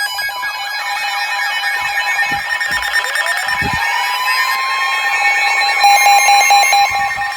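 Several NOAA weather radios sounding their alert alarms at once for an incoming EAS flood alert: overlapping electronic beeps and steady tones, with a chirping data burst ending about a second in. About three seconds in, a tone slides up to a steady pitch near 1 kHz, the weather-radio warning tone, and a pulsing beep joins near the end.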